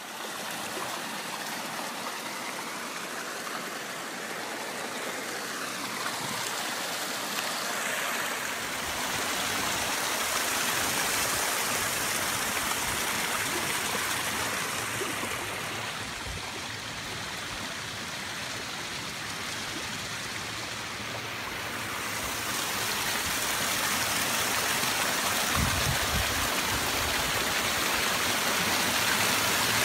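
A small shallow creek running over stones and pebbles: a steady rush and trickle of water that grows louder about two-thirds of the way through.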